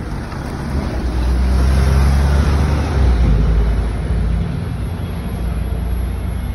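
Double-decker bus engine rumbling as it drives past close by, with tyre and road noise; the rumble swells to its loudest a couple of seconds in and eases off after about four seconds.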